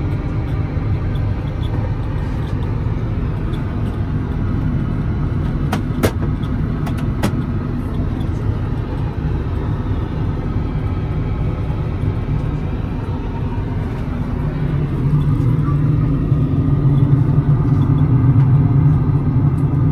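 Steady cabin noise inside an Airbus A380 in cruise flight: a low rumble of airflow and engines. A few sharp clicks come about six to seven seconds in, and the rumble grows louder about fifteen seconds in.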